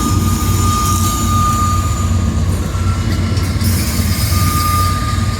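Train rolling past: a steady, loud low rumble, with a thin high wheel squeal that comes and goes twice.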